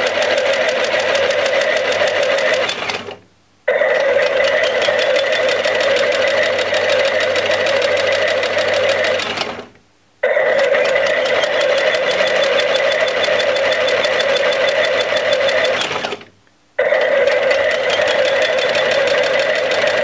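Toy mini drum washing machine running its automatic wash cycle: a steady whirring that winds down and stops briefly three times, as the drum switches between forward and reverse turns.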